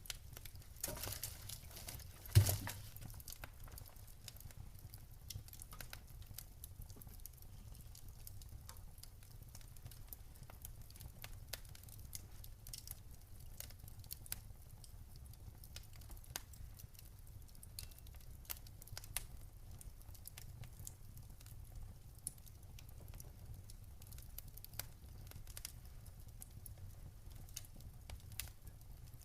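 Wood fire burning in a fireplace: irregular small crackles and snaps over a low steady rumble, with one loud pop about two and a half seconds in.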